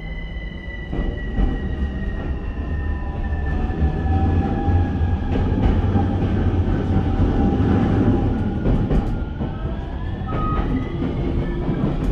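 Running sound inside an E231 series 1000 EMU car: the Hitachi IGBT-VVVF inverter whines in several tones that slowly fall in pitch, with other tones rising near the end. Under it a deep wheel-and-rail rumble grows louder over the first few seconds, with a few knocks from the running gear.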